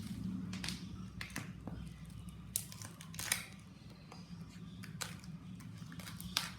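Packaging of a laptop box being handled: scattered light clicks, taps and scrapes, the sharpest two a little past halfway, over a low steady hum.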